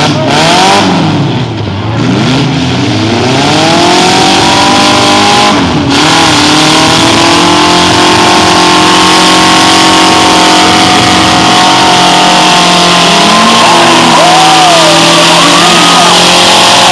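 Several demolition-derby compact cars' engines revving hard at once, their pitches rising and falling over each other, then held high and fairly steady. Loud.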